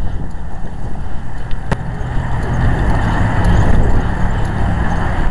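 Loud, steady low rumble of a motor vehicle running, with a single sharp click about a second and a half in.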